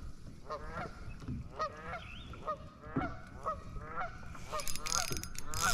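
Geese honking over and over, about two short calls a second.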